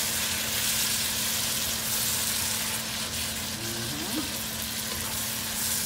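Sautéing garlic, onion, tomato, shrimp and lechon sizzling steadily in a pan, with a faint steady hum underneath.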